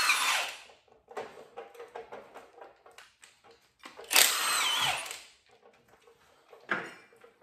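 Milwaukee Fuel cordless power tool running in short bursts on the engine's motor mount bolts: one burst ends just under a second in, another starts about four seconds in and lasts about a second with a wavering whine. Light clicks and knocks fall between the bursts.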